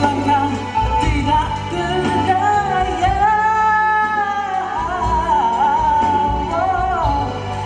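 Music from a ballad's closing bars: band accompaniment under a wavering lead melody with runs, including one long held note with vibrato near the middle.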